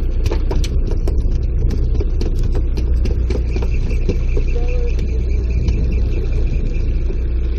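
Sportfishing boat's engine running as a steady low rumble, with scattered light clicks and knocks on deck. A faint high whine joins about halfway through.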